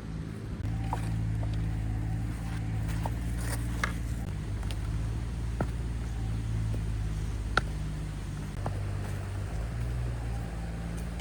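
Engine of a working machine running steadily, picking up slightly about a second in, with a few sharp knocks and clicks over it.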